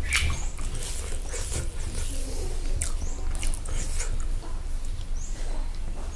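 Close-miked chewing and wet mouth smacking of a man eating hand-fed rice and pork, heard as irregular short smacks and clicks over a low steady hum.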